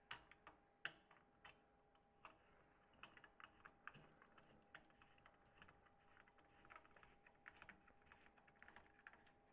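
Faint, irregular light clicks and taps of hand assembly: small metal hardware being handled as a bolt is started and turned into a leg of a storage rack, with one sharper click about a second in.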